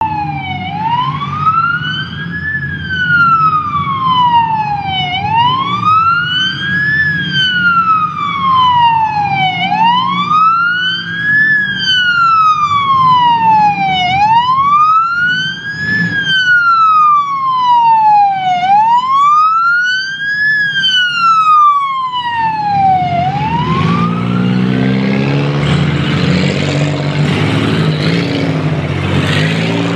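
Police car siren wailing, its pitch rising and falling slowly about every four and a half seconds, over the low running of car engines. The siren stops about 23 seconds in, and the engines of passing demolition derby cars grow louder.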